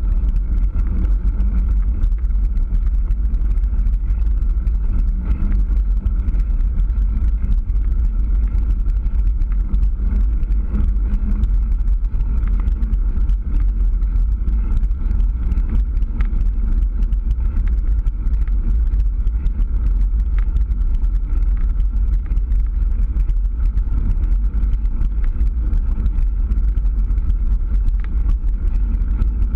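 Steady wind rumble on the microphone of a camera riding on a mountain bike coasting downhill, with the rolling noise of its knobby tyre on asphalt.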